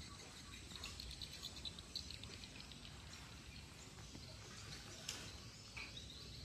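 Faint background ambience with scattered high chirping, with a light click about two seconds in and another about five seconds in.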